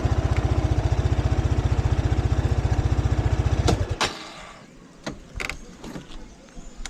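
Shineray Flash 250F motorcycle engine idling with a steady, even pulsing beat, then shut off about four seconds in. A few light clicks and knocks follow.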